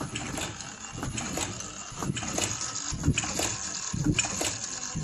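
Automatic flat-mask machine with ear-loop welding running: a rapid mechanical clatter of clicks and knocks, about two to three a second, with a couple of heavier thumps near the middle.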